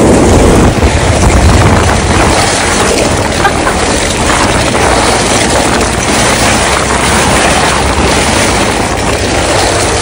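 Sled sliding fast down a snow chute: a loud, steady rush of wind across the microphone mixed with the scrape of the sled over packed snow.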